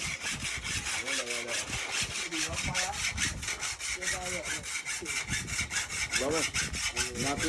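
Rapid, even rasping or scraping, about six strokes a second, with short bits of distant voices now and then.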